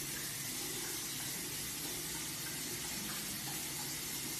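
A steady, even hiss with no distinct sounds in it.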